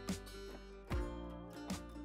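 Background music with plucked guitar notes, a new note coming roughly every second over held tones.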